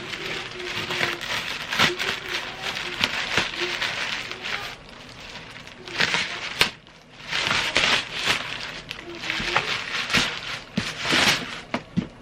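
Toy packaging being handled and opened: bursts of crinkling and rustling plastic and cardboard, with sharp clicks.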